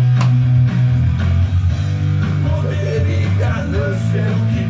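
Rock song playing: electric guitar, bass and drums with a singer.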